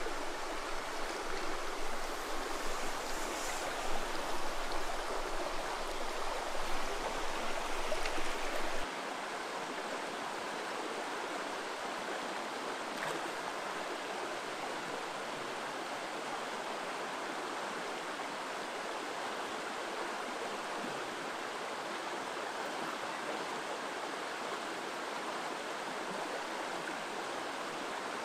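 Running water of a small freestone trout stream, a steady rushing hiss. For about the first nine seconds it is close and uneven, with small louder swells, then it settles to a steady, slightly quieter rush.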